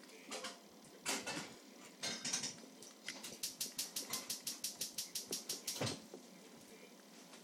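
Small dog eating from its food bowl: crunching and the food and bowl clattering, then a quick even run of about seven strokes a second for nearly three seconds that stops about six seconds in.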